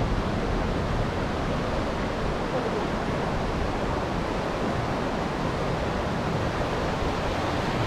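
Steady rush of the Buna River's fast-flowing water.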